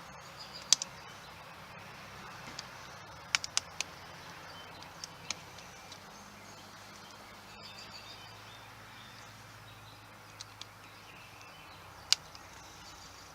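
Scattered sharp clicks and taps from a hose clamp on an RV city water inlet hose being tightened by hand with a screwdriver: one about a second in, a quick cluster of four a few seconds in, and a loud single click near the end. Steady outdoor background noise runs underneath.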